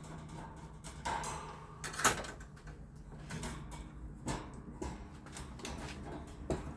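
Parts of a box fan being handled and fitted back together: scattered clicks and knocks, the loudest a single sharp knock about two seconds in.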